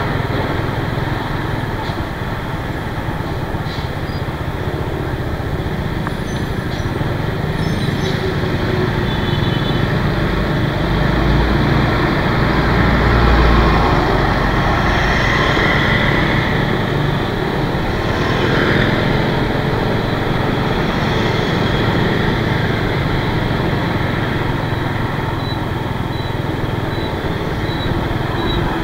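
Road traffic noise heard from a moving scooter: a steady rush of engines and tyres, with a low rumble swelling about halfway through.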